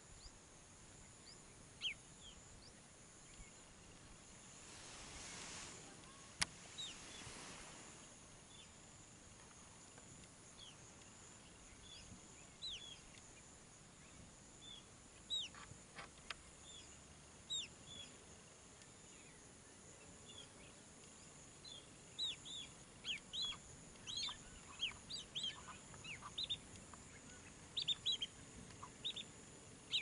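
Faint outdoor ambience with many short, high bird chirps scattered throughout, coming more often in the last third. A soft rush of noise swells and fades from about five to eight seconds in.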